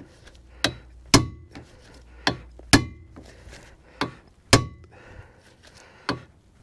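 Short-handled sledgehammer striking a hand impact driver set in a T50 Torx rotor retaining screw, in pairs of a light tap then a hard blow, four times, each with metallic ringing. The hammering is meant to break loose a screw that has stuck in the rear rotor hub.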